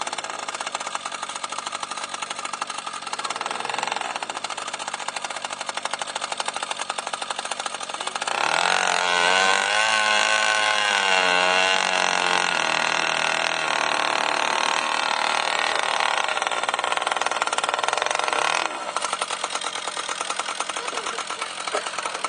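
Small two-stroke petrol engine of a model boat, fitted with a chrome tuned exhaust pipe, running steadily. About eight seconds in it revs up louder, its pitch wavering with throttle blips, then it drops back to a lower speed about nineteen seconds in.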